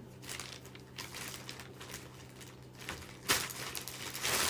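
Rustling and crinkling as a cardboard parcel and its wrapping are handled and opened, with a sharp knock a little after three seconds in and a louder rustle near the end.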